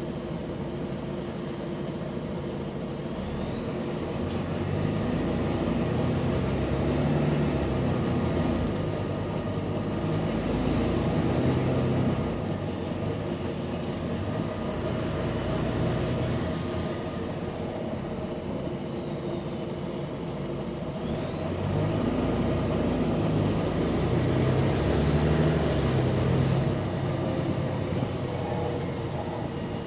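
Double-decker bus's diesel engine pulling away and easing off twice, with a high whine that rises as the bus gathers speed and falls as it slows; the engine note carries an exhaust leak.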